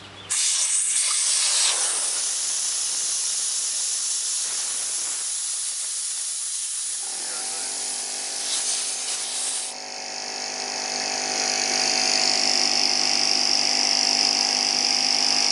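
Compressed air hissing hard out of the opened tank drain valve of a Porter Cable 6-gallon pancake compressor. About seven seconds in, as the tank pressure drops, the compressor's oil-free motor and pump kick on and run steadily under the continuing hiss.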